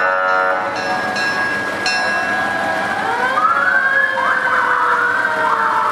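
Emergency-vehicle sirens on parade vehicles wailing, several at once, their pitches rising and falling over one another from a few seconds in. A brief pitched blare sounds at the very start.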